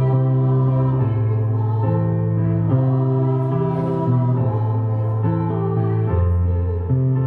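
Small women's choir singing a slow hymn-like song in parts, over sustained chords from an electronic keyboard that change about once a second.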